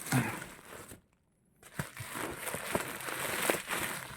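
Packaging being handled while tweeters are unboxed: crinkling and crumpling with scattered clicks, cut by a brief total dropout about a second in.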